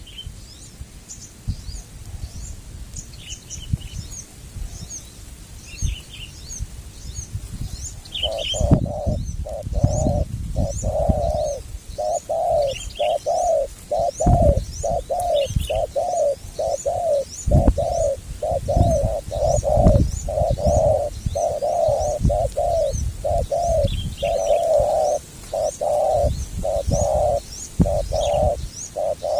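Spotted doves cooing, a long fast run of repeated coo notes that starts about eight seconds in, over a steady series of thin, high chirps from small birds.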